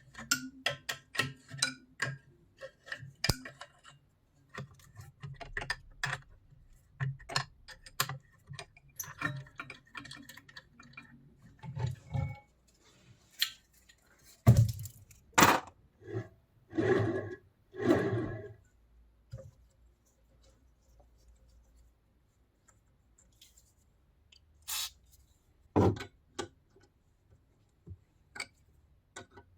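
Irregular clinks, clicks and knocks of metal tools and machine parts being handled, with a denser run of longer handling or rubbing sounds around the middle and only scattered knocks near the end.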